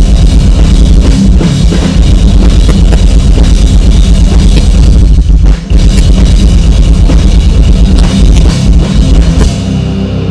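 Metalcore band playing live and loud: distorted electric guitars, bass and a pounding drum kit, with a brief break about five and a half seconds in. Near the end the full band drops out, leaving a low held tone ringing.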